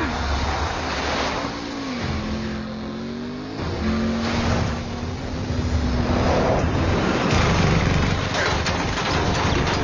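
Movie action sound mix of car engines revving and accelerating over a heavy rumble, the engine note sliding down and then holding steady, with scattered sharp hits near the end.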